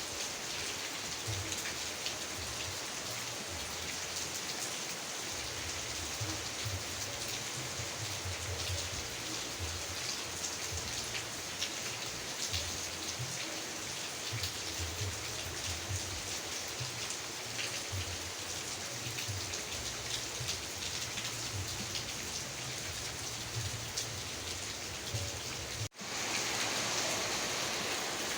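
Steady heavy rain falling, with individual drops ticking through the hiss. About 26 seconds in it cuts out for an instant, then comes back slightly louder.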